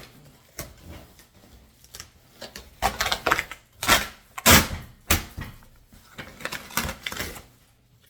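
Cardboard shipping box being opened and handled: a run of short scraping, ripping and knocking sounds, busiest and loudest around the middle.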